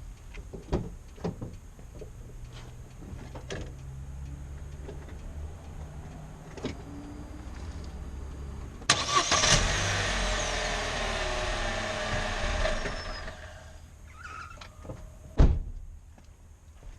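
2015 Opel Corsa with its engine running low, then from about nine seconds in a loud, harsh rasping noise lasting four to five seconds that dies away: the noise the car makes only when braking to a stop, which the owner says is not the pads, guide pins or suspension. A single loud thump comes near the end.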